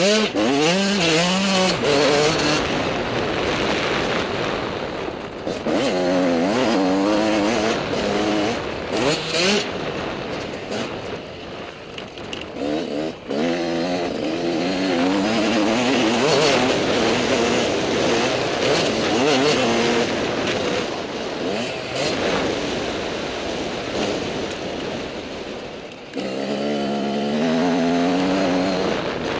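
Motocross dirt bike engine revving hard as it is ridden, its pitch climbing and falling through the gears, with wind noise over the microphone. The engine eases off twice, near the middle and shortly before the end, then picks up again.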